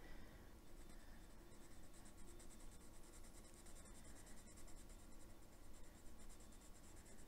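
Faint scratching of a Derwent metallic watercolour pencil colouring lightly on thin colouring-book paper.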